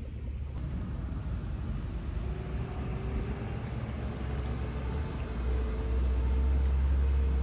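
Open jeep driving along a wet road: a low engine and road rumble with a faint whine that rises slowly in pitch as it speeds up, growing louder about five seconds in.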